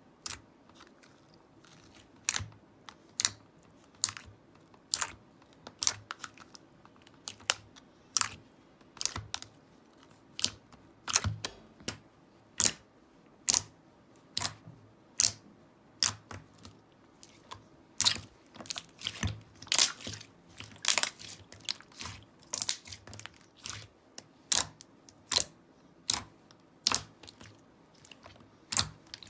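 Slime being squeezed and pressed by hand, giving irregular sharp clicks and small crackling pops, a few a second and denser in places.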